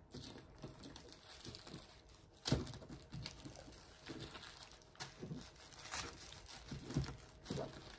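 Faint crinkling and tapping of small plastic zip bags of square resin diamond-painting drills being picked up and moved on a paper canvas, with a sharper tap about two and a half seconds in and a few lighter ones later.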